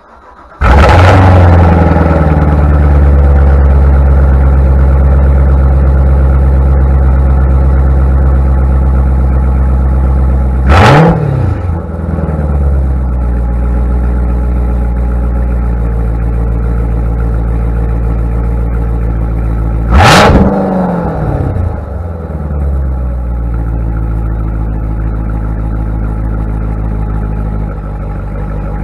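Corvette Z06's supercharged 6.2-litre V8 on a cold start. It fires about half a second in and settles into a steady high cold idle through the quad exhaust, with two short throttle blips where the revs jump and fall back.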